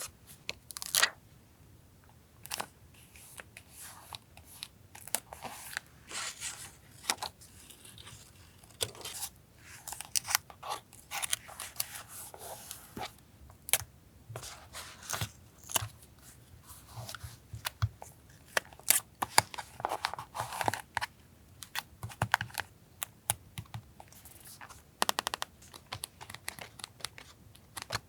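Close-up paper handling for a journal collage: paper rustling, crinkling and tearing, with many sharp clicks and taps.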